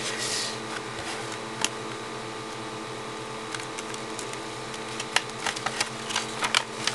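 Electric fan running with a steady hum, over scattered soft crinkles and ticks of transfer tape and vinyl backing paper being handled, which come more often near the end.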